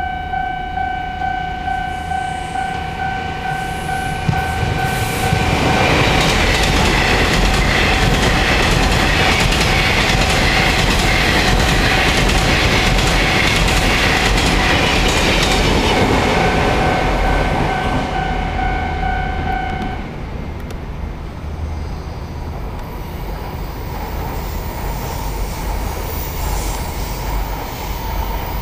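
A level crossing's special electronic warning tone rings in steady pulses while a southbound Taiwan Railways PPE1000 push-pull Tze-Chiang express passes, its wheels clattering over the rail joints for about twelve seconds. The warning tone stops about twenty seconds in.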